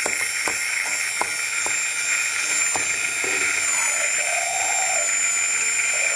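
Electric stick blender running in a stainless steel bowl, beating egg yolk and sugar, its motor giving a steady high whine. During the first three seconds the blender head knocks against the steel bowl in a series of sharp clicks.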